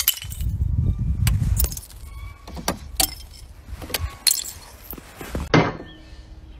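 A dog biting and snapping icicles off a car's door sill, a string of sharp cracks and clinking ice.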